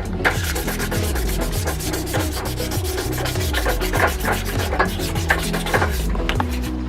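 1200-grit emery paper rubbed by hand over the rusty brass body of a padlock in quick, repeated back-and-forth sanding strokes, taking off rust.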